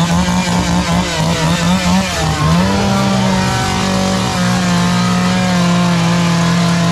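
Two-stroke chainsaw engine revving, its pitch rising and falling for the first couple of seconds, then held steady at high speed.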